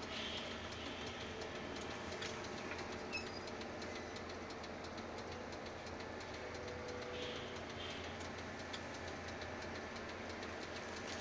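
Vehicle engine running steadily, heard from inside the cabin as a constant low hum.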